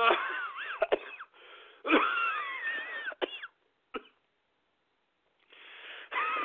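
A man groaning, gasping and coughing in distress, with strained moans that waver up and down in pitch, a pause of about a second past the middle, and heavy breathing near the end. The groans go with his complaint of chest and heart pain.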